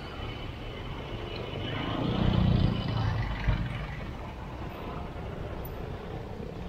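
Vehicle noise: a steady low rumble that swells louder for about a second, two seconds in, with one sharp click shortly after.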